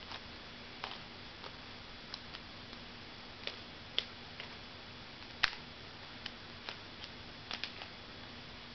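Plastic Rubik's Cube layers being turned by hand: a string of irregular light clicks, the loudest about five and a half seconds in.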